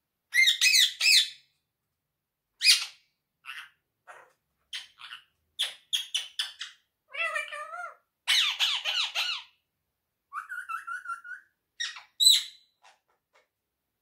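Indian ringneck parakeet calling in a run of harsh squawks, short chirps and chatter, with a held whistled note about ten seconds in and a loud squawk near the end.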